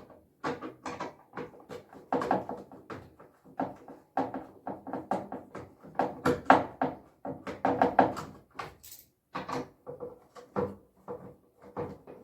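Busy, irregular knocking and clattering of hard parts being handled and knocked together, several strokes a second, with the loudest knocks in the middle.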